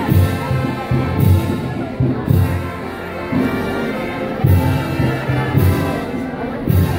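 Brass band playing a slow processional march: held brass chords over strong beats about once a second.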